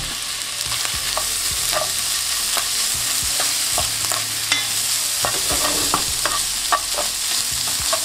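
Pre-boiled rice frying with a steady sizzle in oil in a nonstick pan while a spoon stirs and tosses it. Short scrapes and taps of the spoon against the pan come every second or so.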